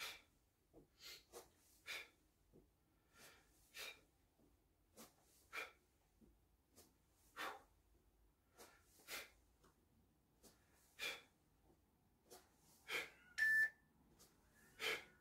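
A man's forceful exhalations from exertion during mountain climbers: short puffs of breath, about one every one to two seconds. A short beep sounds near the end.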